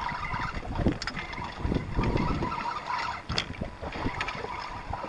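Wind buffeting the microphone over water splashing against a small fishing boat's hull, with a few light knocks.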